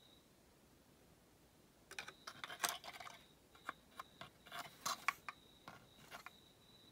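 Irregular light clicks and clinks of hard plastic and metal parts: the brush-holder plate of an electric power steering pump motor being handled and seated back into its housing. The clicks start about two seconds in and stop shortly before the end.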